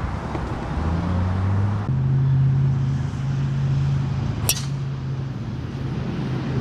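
A golf club striking a ball off the tee: one sharp crack about four and a half seconds in, over a steady low hum.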